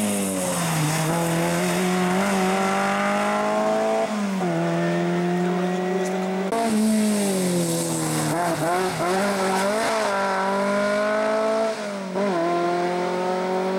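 Rear-engined Škoda rally saloons accelerating hard away along a tarmac stage. The engines rev through the gears, their pitch climbing steadily and then dropping at each gear change, several times over.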